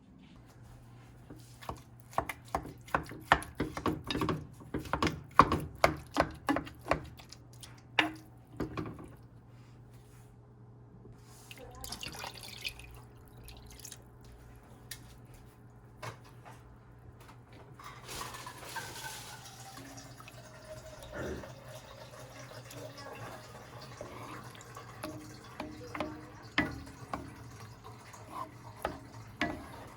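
Kitchen clatter: a quick string of clinks and knocks from dishes and utensils, then water running from a tap with scattered knocks, over a steady low hum.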